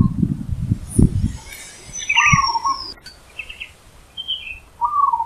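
Wild zebra dove cooing, a short pitched phrase repeated at the start, about two seconds in and near the end. A thin falling whistle from another bird comes between the coos, over a low rumble in the first second and a half.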